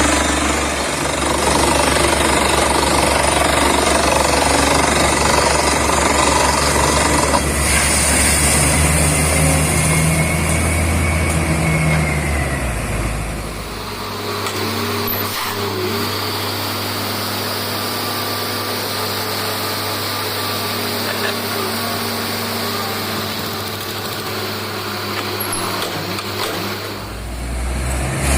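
Borewell drilling rig at work: a compressed-air down-the-hole hammer pounding with the rig's engine and air compressor running. About halfway through the deep rumble drops away, leaving a steadier machine noise, and it comes back near the end.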